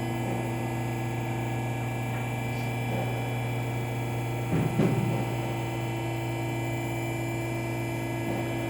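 Steady electrical hum made of several unchanging tones, with a brief low sound about four and a half seconds in.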